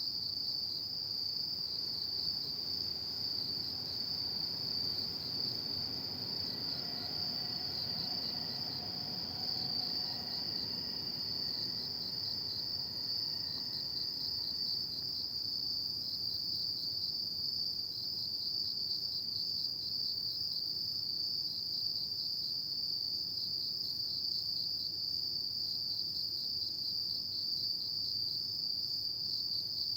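Chorus of autumn crickets trilling at night, a steady high-pitched pulsing song that never lets up, over a faint low background hum.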